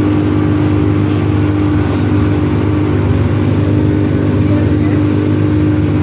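Motorboat engine running steadily at speed, a constant drone with one strong held tone, over the rush of the boat's wake.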